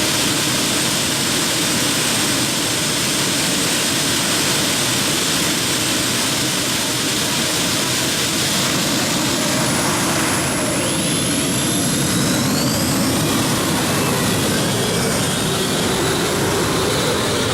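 Heavy modified pulling tractor's engines at full power while it drags the weight-transfer sled: a loud, steady roar that starts suddenly, with a thin high whine over it and a second whine rising about two-thirds of the way through.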